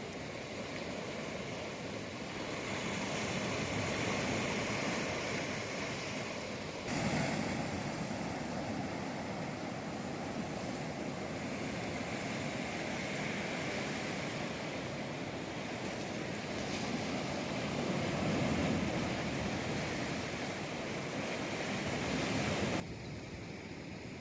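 Sea waves breaking and washing on the shore, a steady rush of surf that swells and eases. The sound changes abruptly about seven seconds in and again near the end, where shots are joined.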